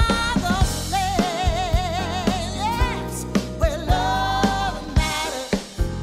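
Background music: a singing voice holds long notes with a wavering vibrato over a steady drum-kit beat.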